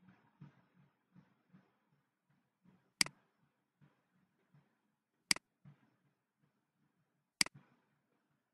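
Three sharp computer mouse clicks, about two seconds apart, with faint scattered ticking between them.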